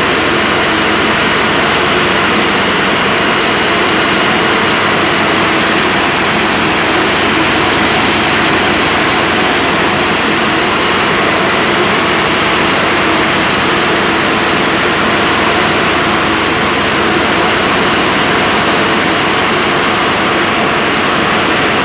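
A loud, steady machine noise with a thin high whine running through it, unchanging throughout.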